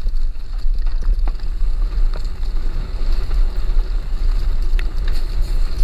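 Wind buffeting the microphone of a helmet camera on a mountain bike riding fast downhill, a steady low rumble, with scattered clicks and knocks from the bike rattling over the dirt trail.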